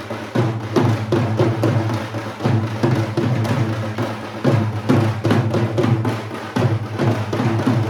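Samba band drumming: deep bass drums under sharper percussion hits, playing a steady, driving rhythm.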